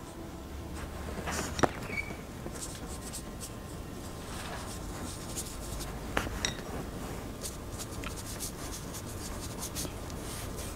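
Calligraphy brush sweeping across paper: a dry, scratchy rubbing with two sharp ticks, one near the start and one around the middle.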